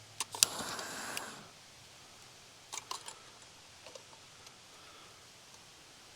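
Steady, faint rushing of a waterfall. Over it, a few sharp clicks and a brief rustling scrape about half a second in, and another quick group of clicks around three seconds in.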